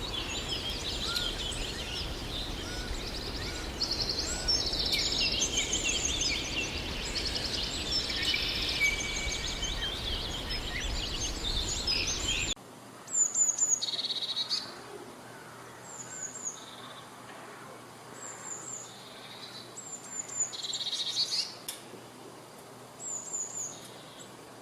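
Several birds singing and calling together over a steady background hiss, switching abruptly about halfway through to a quieter recording in which a few birds give short, separate high chirps a couple of seconds apart.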